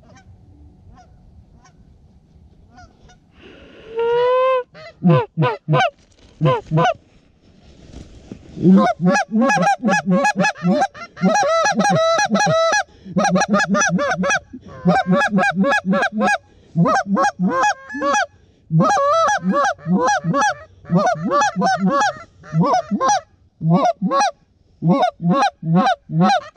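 Hand-blown Canada goose calls: one long rising honk about four seconds in, a few short honks, then after a short pause a fast, nearly unbroken run of honks and clucks in bursts. This is calling to geese flying overhead.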